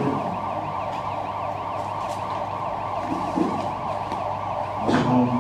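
An emergency-vehicle siren in a fast yelp, its pitch sweeping up and down several times a second without a break.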